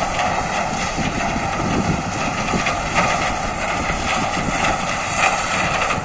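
Shaktimaan 3737 sugarcane harvester running steadily as it cuts cane, its engine and cutting and elevator machinery making a constant mechanical noise, with wind buffeting the microphone.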